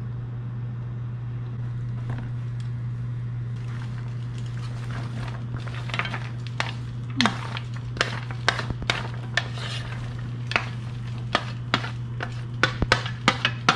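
Kitchen utensils clinking and tapping against dishes and pans, a few at first and then more often in the second half, over a steady low hum.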